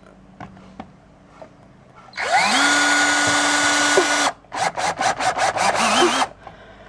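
Power drill driving a self-drilling screw. The motor spins up, rising in pitch, and runs steadily for about two seconds before stopping. It then comes back as a quick string of short bursts as the trigger is pulsed to seat the screw.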